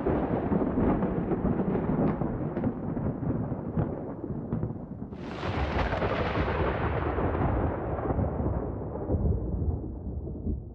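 Thunder: a crash at the start runs into rumbling with scattered crackles, then a second sharp thunderclap about five seconds in fades away slowly over several seconds.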